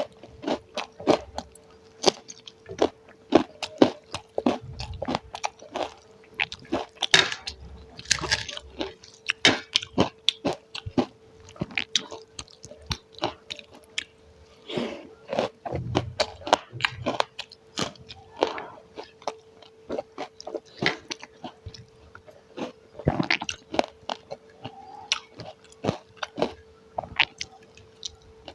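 Close-miked chewing and mouth sounds of a person eating a meal of rice with curries, fried pakora and green chillies: irregular wet smacks and crisp bites, several a second, over a faint steady hum.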